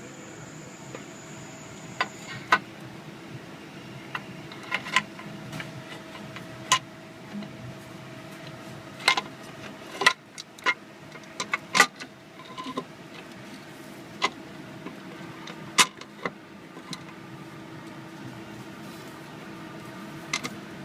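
Irregular sharp clicks and taps of hand tools and metal parts being handled during engine work, over a steady low hum.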